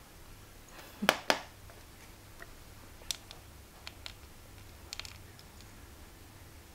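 Two sharp knocks in quick succession about a second in, then a few scattered light clicks and ticks over a faint steady hum.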